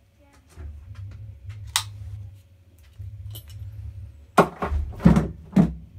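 Handling noise from a power cable and its plug being moved about: low rumbling, a sharp click about two seconds in, then three loud knocks in quick succession near the end.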